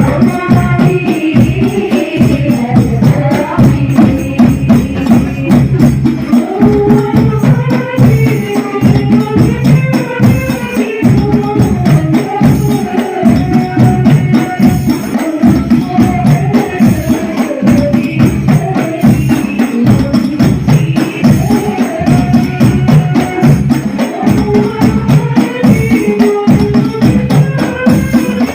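Hadroh ensemble playing: rebana frame drums beating a fast, dense rhythm under voices singing a wavering devotional melody, played loud through a sound system.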